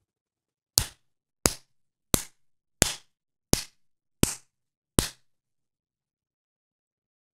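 A man clapping his hands slowly: seven single claps, evenly spaced about 0.7 s apart, then he stops about five seconds in.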